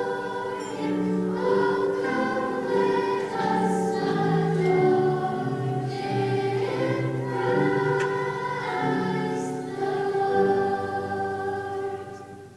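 Children's choir singing a Christmas song in sustained phrases, the last note fading out near the end.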